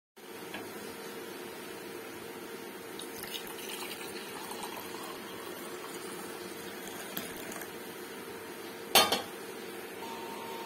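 Steady rain noise, with one short, sharp clink of crockery about nine seconds in.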